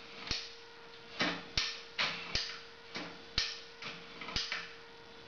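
Ratchet jack on a homemade leg-stretching post clicking notch by notch as its handle is worked, raising the foot holder half an inch per notch. Sharp separate clicks, roughly two a second, often in pairs.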